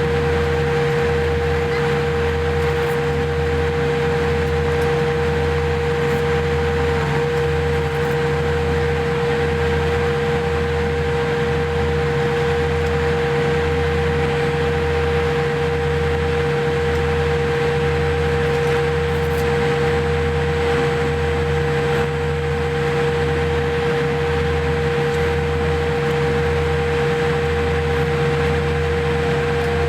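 Steady cabin noise inside a Boeing 787-8 on the ground after landing: a constant mid-pitched whine over a low hum that pulses about once a second.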